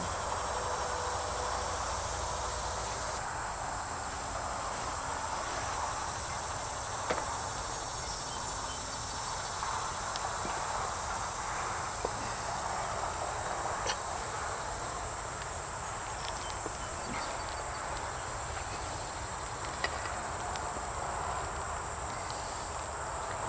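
Steady outdoor insect chorus, a constant high buzz, with a few faint clicks from hands working a hose fitting.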